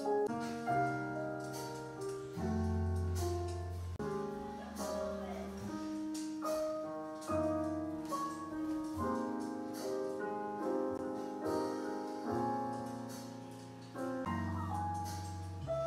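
Soft background piano music, notes struck and held over slowly changing bass notes.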